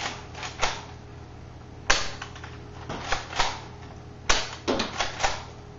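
Nerf Vortex Praxis pump-action disc blaster firing twice, about two and a half seconds apart: each shot is a sharp snap, followed by a run of lighter clicks and clatter.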